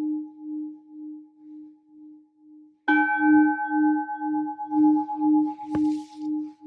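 Metal singing bowl ringing: the tone of an earlier strike fades away, wavering in a slow pulse about twice a second, then the bowl is struck again about three seconds in and rings on, brighter with higher overtones. A short click near the end.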